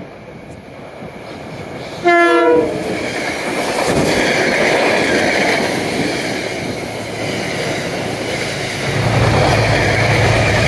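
A Metro-North push-pull train passing close on the near track. It sounds a short horn blast about two seconds in, then runs by with steady, loud wheel-on-rail noise. Near the end the low drone of the diesel locomotive pushing at the rear joins in.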